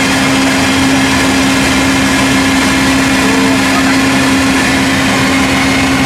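Loud, steady machinery drone with one strong unchanging hum running under a broad noise, like an engine or generator running without a change in speed.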